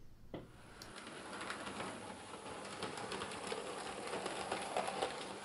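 Model railway electric locomotive (DB class 111) running along the track: a steady running noise of motor and wheels on rail with rapid light clicking, growing a little louder as it passes close.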